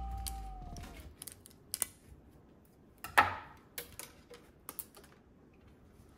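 Kitchen prep: scattered knocks and clicks of food and utensils handled on a wooden cutting board and countertop, the loudest a little past three seconds in.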